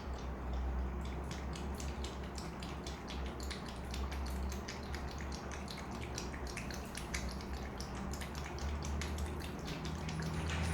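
A cat lapping water with its tongue: a quick, loud series of wet splashy clicks, about four a second, over a steady low hum.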